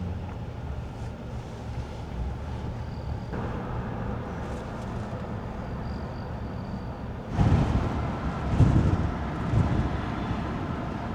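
A car driving, with steady engine and road rumble. About seven seconds in, a louder, uneven rushing begins.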